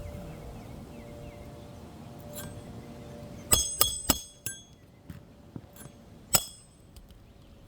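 Roofer's hatchet striking roofing nails into a 3-tab asphalt shingle: four quick, ringing metal strikes about three and a half seconds in, then one more about two seconds later.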